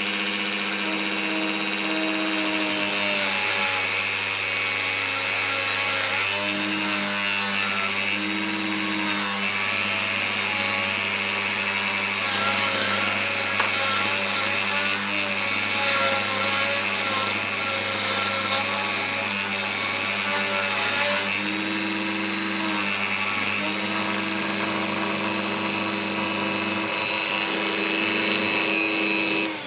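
Rotary tool on a flexible shaft with a thin cutting disc running at high speed. Its steady whine wavers and shifts in pitch as the disc bites into a metal capacitor can, cutting a fine ring off the top. It starts winding down at the very end.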